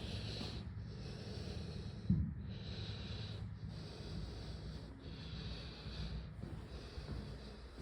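Heavy breathing close to the microphone, a hissing breath roughly every second, over a low rumble, with a single thump about two seconds in.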